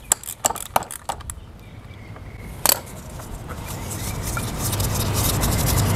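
Sharp metallic clicks, about three a second, as the oil filter under a Yamaha Bolt 950's engine is worked loose, then one louder click nearly three seconds in. After that a steady rush of noise builds and grows louder.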